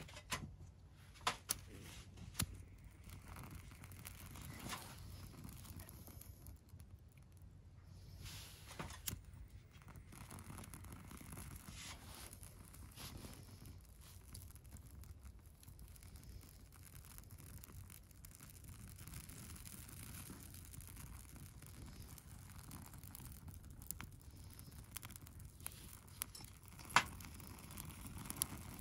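Small fire of dry leaves and sticks catching and starting to burn, with faint crackling and rustling and a few sharp pops, loudest about a second in, two seconds in and near the end.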